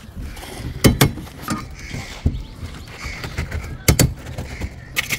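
Work sounds of hand concreting on a roof slab: several sharp knocks and clanks of pans and tools over a continuous mechanical running sound.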